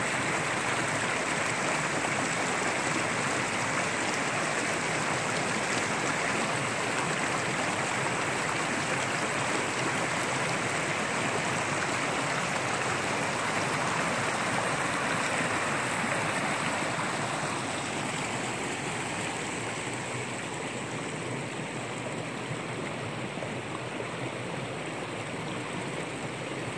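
A rocky mountain stream rushing over boulders and riffles: a steady rush of water that softens about two-thirds of the way through.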